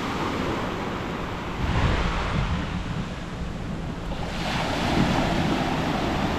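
Surf breaking and washing up a sandy beach, swelling twice, about two seconds in and again just past four seconds, with wind buffeting the microphone.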